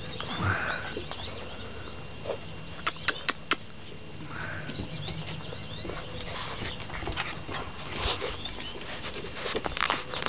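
Small birds chirping in short quick calls, with scattered sharp clicks and taps, a cluster about three seconds in and more near the end.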